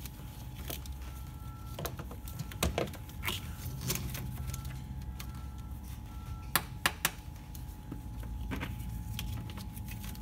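Scattered clicks and knocks of a plastic engine-bay intercooler cover being unclipped, lifted off and handled, with two sharp clicks close together about two thirds of the way through. A steady low hum runs underneath.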